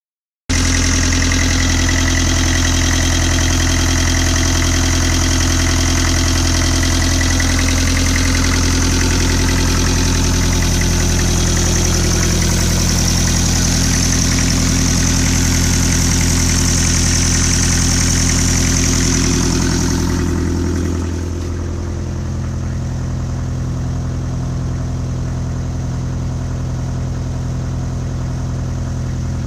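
Land Rover 12J 2.5-litre naturally aspirated four-cylinder diesel idling steadily on its first run after a rebuild. It cuts in abruptly already running, and about 20 seconds in it turns duller and a little quieter, heard from inside the cab.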